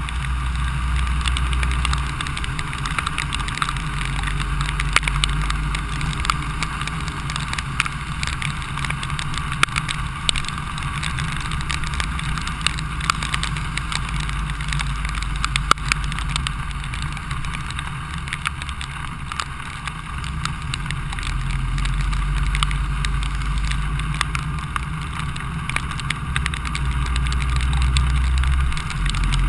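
A vehicle travelling along a rain-soaked street: a steady low engine and road rumble that swells a few times. Many small, scattered ticks of raindrops land close to the microphone.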